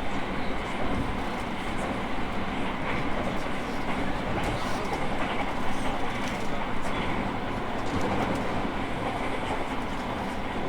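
E217 series electric train heard from inside the car while running at a steady speed: a continuous rumble and rush of wheels on rail, with a few light clicks from rail joints.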